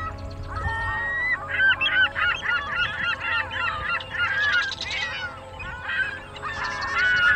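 A flock of birds calling, with many short honking calls overlapping one another throughout.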